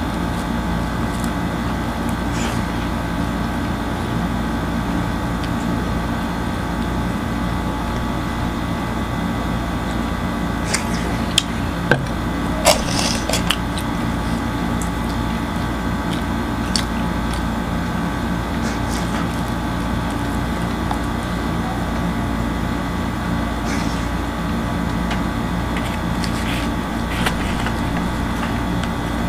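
Close-up eating sounds: scattered clicks and crackles of chewing and tearing kubos flatbread and pizza, the loudest in the middle and a few near the end, over a steady mechanical hum.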